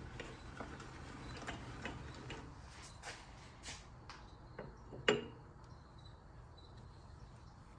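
Scattered light clicks and taps of metal parts being handled, with one sharper knock about five seconds in.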